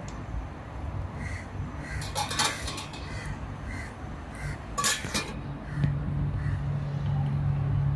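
Stainless steel pot lid clinking and clanking against the rim of a stockpot as it is handled and set on, with two bursts of metal clatter, about two seconds in and about five seconds in. A low steady hum comes in about six seconds in.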